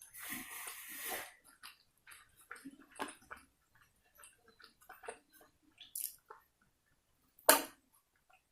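Close-up mouth sounds of a person eating egg biryani and chicken kosha: chewing and small wet clicks and smacks. A short rustling noise opens it, and one sharp click about seven and a half seconds in is the loudest sound.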